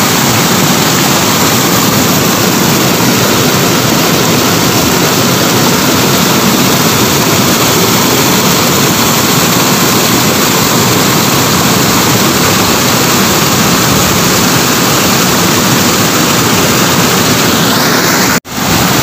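Waterfall plunging hard into a deep rock pool: a loud, steady rush of water. The sound drops out sharply for a moment near the end.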